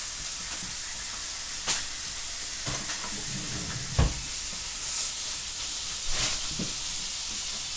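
Food sizzling steadily in a frying pan, with three short kitchen knocks about two, four and six seconds in.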